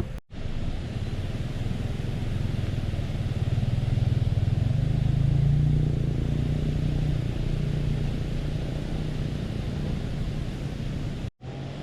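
A motor vehicle's engine running steadily with road noise, its pitch and level rising a little in the middle. The sound drops out for a split second just after the start and again near the end.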